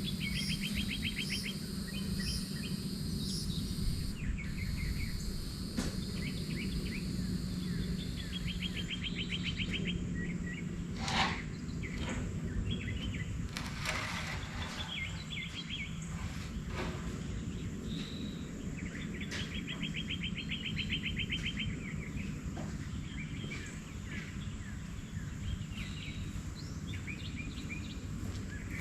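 Outdoor birdsong: repeated rapid trills about a second long and scattered chirps. A high steady whine runs through the first third, and a few sharp knocks come near the middle, the loudest a little before halfway.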